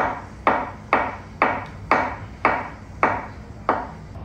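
Chef's knife slicing boiled, peeled beets on a wooden cutting board: eight even knocks of the blade on the board, about two a second.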